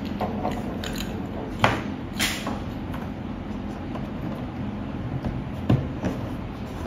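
A few short clicks and knocks of hard plastic parts being handled as small nuts are pressed into the hand-support holes of a plastic kids' slide, over a steady low hum.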